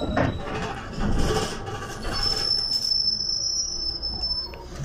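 City bus running with a steady cabin rumble. About two seconds in, its brakes give a steady high squeal that lasts about two seconds.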